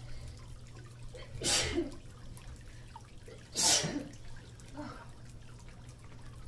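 Two loud sneezes about two seconds apart, followed by a softer third one.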